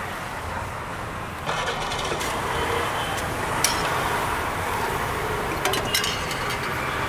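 Steady roadside traffic and street noise. It steps up slightly about a second and a half in. Over it come a few sharp clinks of a steel ladle against steel pots: one about halfway through and a quick cluster a couple of seconds later.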